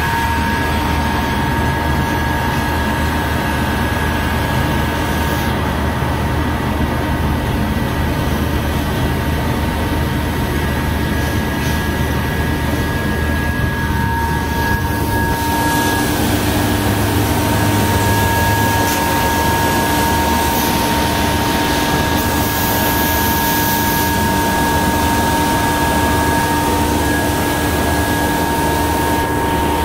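Jonsen SGP1000 deburring and edge-rounding machine running steadily as it processes an aluminum sheet part. It makes a loud, even drone with two steady high whining tones over a low hum, and a lower tone joins about halfway through.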